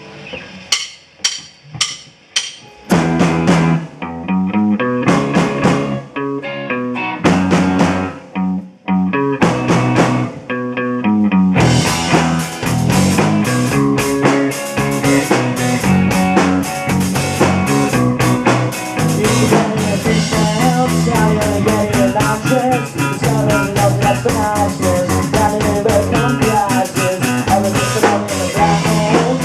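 Rock band playing an instrumental passage: a few sharp separate hits at the start, then bass and guitar with short breaks, and the full band with drum kit and cymbals playing continuously from about eleven seconds in.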